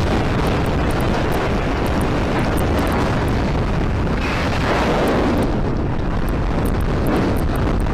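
Strong wind buffeting the microphone: a loud, steady rumble with hiss and no distinct events.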